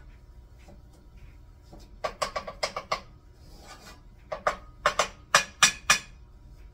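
Wooden spatula tapping and scraping against a cast iron skillet while butter is pushed around to melt. It comes as a quick run of about eight light taps about two seconds in, then about six louder, spaced knocks later on.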